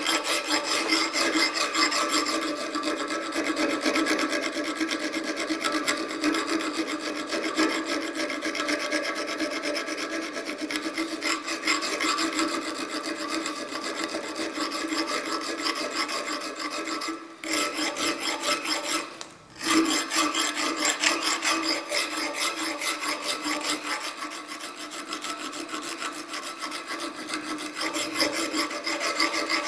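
Round file rasping back and forth through the eye of a steel cross pein hammer head clamped in a vise, in steady, continuous strokes with a steady ringing tone underneath. The filing stops twice briefly, about 17 and 19 seconds in.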